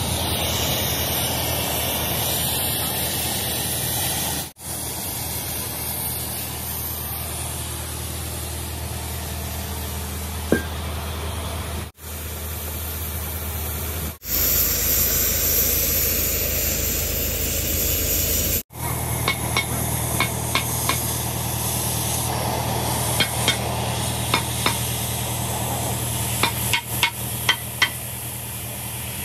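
Edited workshop sounds: a steady low engine hum, then a loud even hiss for a few seconds about halfway through. In the last ten seconds an oxy-acetylene cutting torch hisses with many sharp crackles as it cuts out the worn bush in a backhoe bucket's pin boss.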